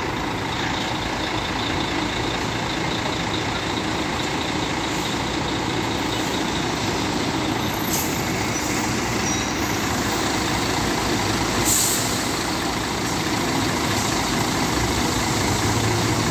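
Marcopolo Paradiso G8 double-decker coach on a Mercedes-Benz chassis, its diesel engine idling steadily with a faint continuous whine. A short hiss of air, typical of an air-brake release, comes about twelve seconds in.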